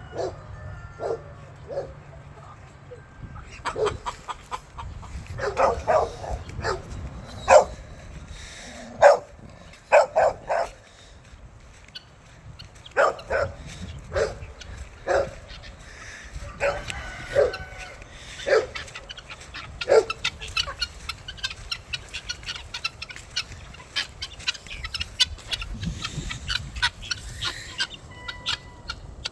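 Dogs barking in short, irregular bouts, with chickens clucking.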